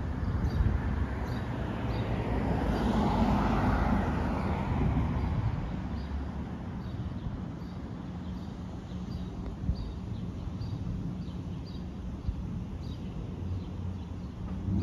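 A car passing along the street: its tyre and engine noise swells over the first few seconds and fades away. Under it runs a steady low rumble, and a bird's faint short chirps repeat throughout.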